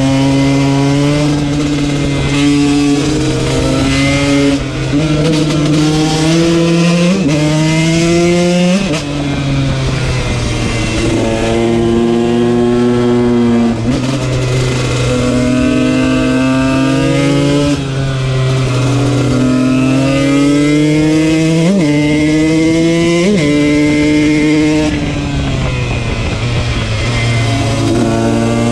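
KTM 125 two-stroke motard engine under way, revving up through the gears: the pitch climbs on each pull and drops sharply at each shift, several times over, with a steady low drone beneath.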